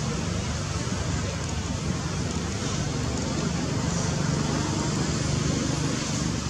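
Steady low rumbling outdoor background noise with no distinct events; no monkey calls stand out.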